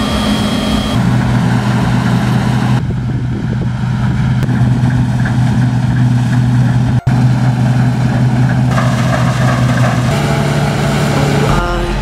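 Diesel engines of a New Holland TC5080 combine harvester and a Fiat tractor with a grain cart running steadily. The sound jumps abruptly several times between clips, with a brief dropout about seven seconds in.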